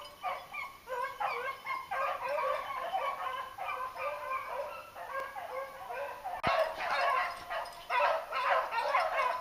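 A pack of beagles baying over and over, many short calls overlapping, as the hounds run a hare. The baying grows louder about two-thirds of the way through.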